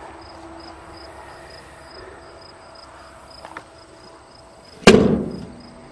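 A single loud, sharp bang about five seconds in, dying away within half a second, over crickets chirping steadily in the background.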